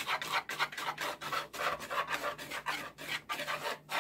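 Wire whisk scraping around a mixing bowl in quick, even strokes, about four a second, stirring dry flour and sugar and breaking up brown sugar clumps.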